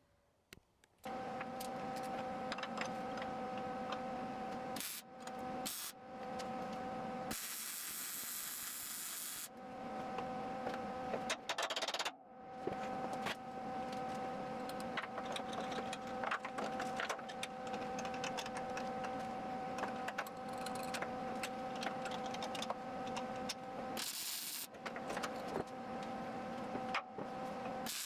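A power tool cutting a piece of steel plate: a steady whine over a hiss, stopping and restarting a few times, one pause filled by a couple of seconds of plain hiss.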